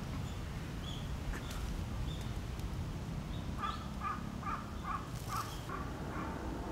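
Crows cawing in a quick, even run of calls through the second half, over a steady low outdoor rumble. A few short high chirps come in the first half.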